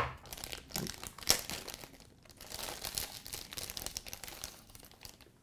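Sealed clear plastic bag around a camera body crinkling as it is pulled open by hand, in irregular rustles with a sharper crackle about a second in.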